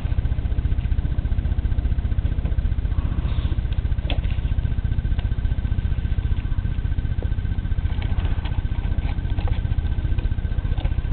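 Steady low rumble with a faint, steady high whine over it, and a few faint light clicks scattered through.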